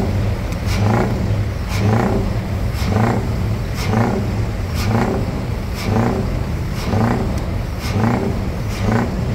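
Scania truck's diesel engine revved over and over through its tall vertical exhaust stack, about one rev a second, in an even rhythm.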